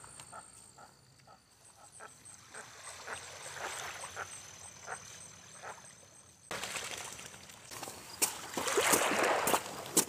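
Small waves lapping gently at the edge of a lake, with faint irregular splashes. About two-thirds of the way in, a louder, irregular rustling noise starts suddenly.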